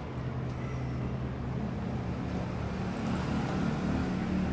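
2006 Toyota Vios's four-cylinder VVT-i petrol engine idling with a steady low hum, growing slightly louder after about three seconds.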